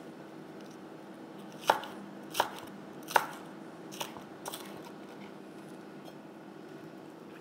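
Kitchen knife cutting a red kapya pepper into thin julienne strips, its blade knocking against a wooden cutting board about five times in the first part, unevenly spaced.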